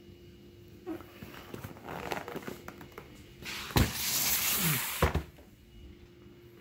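Handling noise: scattered rustles and clicks, then a loud scrape of about two seconds with a heavy thud at its start and another at its end, as the cardboard box is moved about.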